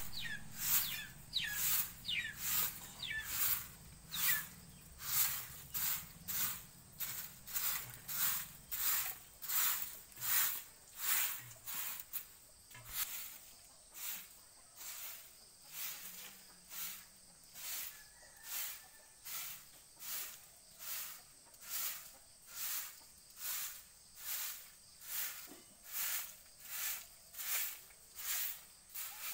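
Short-handled bundle broom sweeping a packed-earth yard: steady rhythmic swishes, about one and a half strokes a second. A few bird chirps near the start.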